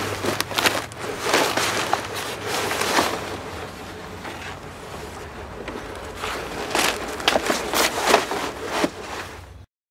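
Large sheets of brown kraft paper being gathered and crumpled: a run of irregular rustling, crackling swishes that ease off for a couple of seconds midway, then pick up again before cutting off just before the end.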